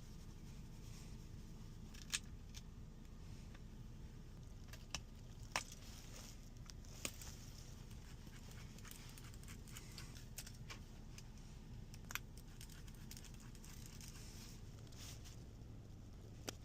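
Scattered sharp clicks and faint handling and rustling noises from small tools and parts during an iPhone screen replacement, over a low steady hum.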